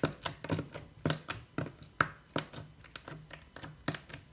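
Yellow glittery jelly slime pressed and poked with the fingertips on a table, giving a quick, irregular run of sharp popping clicks, about four or five a second. This slime makes a lot of noise.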